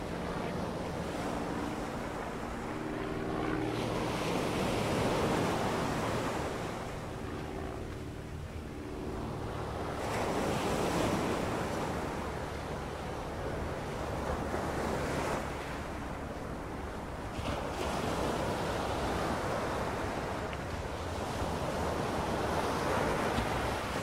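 Mediterranean surf washing on the beach, swelling and fading every few seconds, with wind on the microphone.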